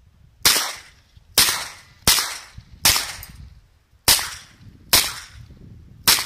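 Seven gunshots from a Smith & Wesson 929 9mm double-action revolver, fired at an even pace of about one shot every three-quarters of a second, with a longer pause after the fourth. Each crack trails off in a short echo.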